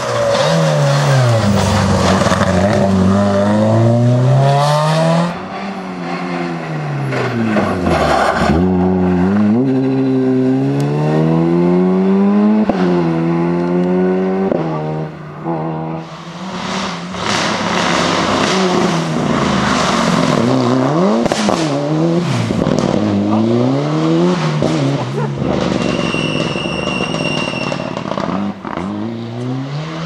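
Rally car engines at full throttle as cars pass one after another, among them a Ford Fiesta: revs climbing and dropping sharply again and again through gear changes. Near the end a steady high tone sounds for about a second and a half.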